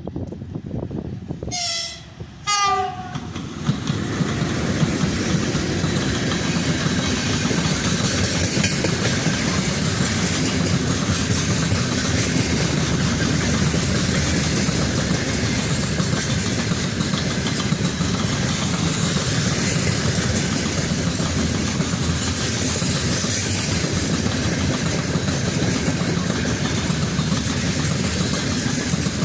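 VL80S electric locomotive sounding two short horn blasts, then its freight train passing close by: a loud, steady rumble of the locomotive and wagons running on the rails, building up about four seconds in and holding.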